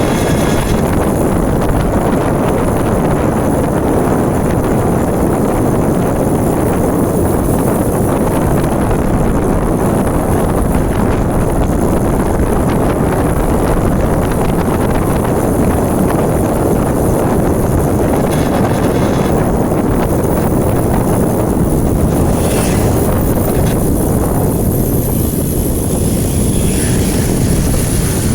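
Steady, loud wind noise buffeting the microphone over road rumble, as from a bicycle ridden at speed.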